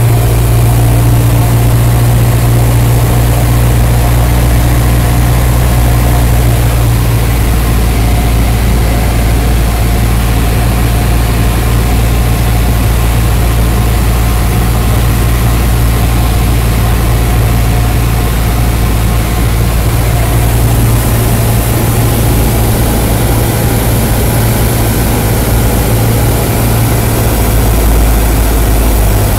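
Cessna 172's engine and propeller droning steadily, heard from inside the cabin during the landing approach.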